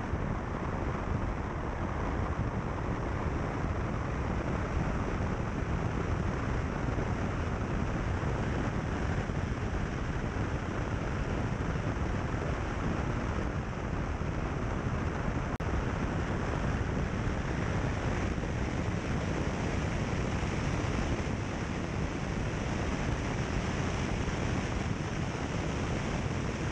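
A car driving steadily along a country road: an even rush of wind on the microphone mixed with tyre and road noise, with no distinct engine note standing out.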